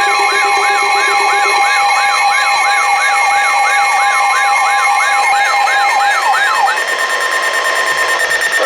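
Electronic emergency alert tones: a siren-like falling sweep repeating about three to four times a second over steady alarm tones. The sweep cuts off about two-thirds of the way through, leaving a steady tone. It is the attention signal ahead of a severe weather warning broadcast.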